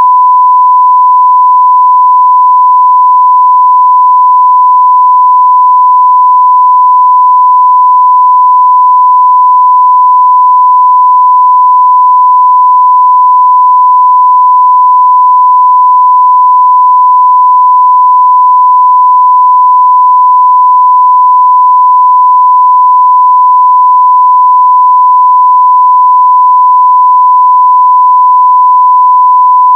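A steady, unbroken 1 kHz sine-wave test tone at a constant, high level.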